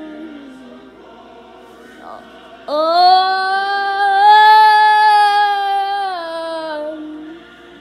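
A voice sings one long, steady held note of about four seconds, starting about three seconds in, after a quieter wavering voice at the start.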